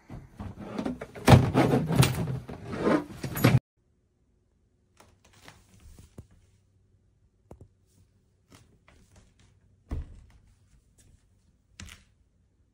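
A few seconds of clattering and knocking that cuts off abruptly, followed by scattered faint taps and a thud about ten seconds in.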